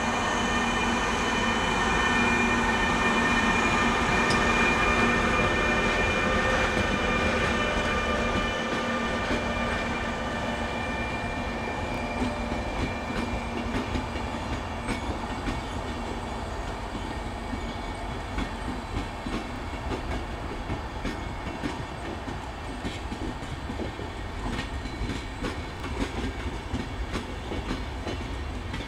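FS E402B electric locomotive passing with a steady electrical whine of several tones, which fades over the first ten seconds or so as it draws away. Then the SBB passenger coaches roll past, their wheels clicking over the rail joints in irregular beats.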